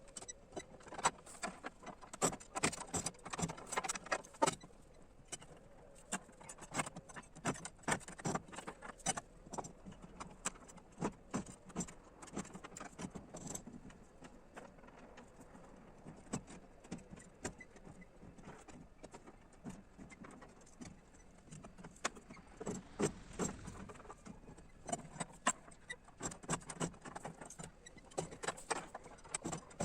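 Irregular light clicks, clinks and knocks of hand work. They come thick in the first few seconds and again near the end, and are sparser in between.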